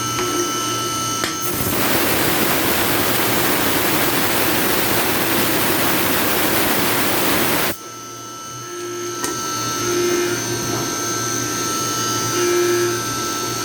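CNC milling machine running in emulsion coolant with a steady whine. A loud even hiss starts abruptly about a second and a half in and stops just as suddenly some six seconds later.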